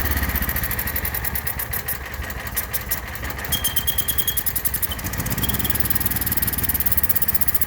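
Generator engine running steadily, with a thin high-pitched whistle that sounds for under a second about halfway through and briefly again a second later.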